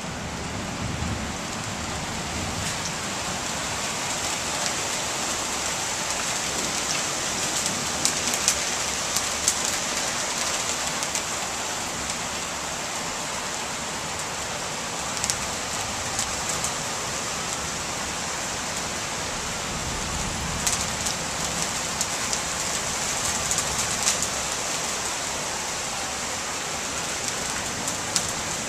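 Heavy rain falling steadily, a dense even hiss, with scattered sharper taps of drops landing close by.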